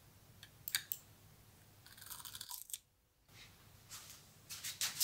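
Metal hand tool clicking and rattling on an alternator's front nut as it is tightened: a couple of sharp clicks, then a run of fast clicking about two seconds in. A half-second of dead silence follows, then more light clicks and knocks of metal parts being handled.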